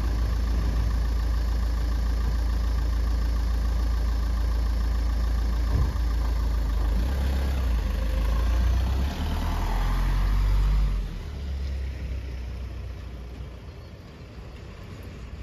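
White van's engine idling close by, then pulling away after about eight seconds, its sound dropping off and fading.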